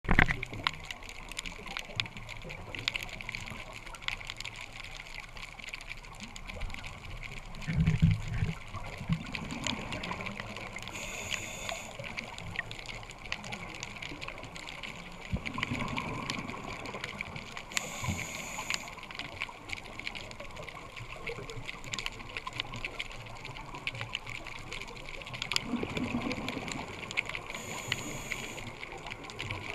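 Scuba diver's regulator breathing heard underwater through the camera housing: about three breath cycles, each a short hiss of inhaling and a gurgling rumble of exhaled bubbles. Underneath runs a steady fine underwater crackle.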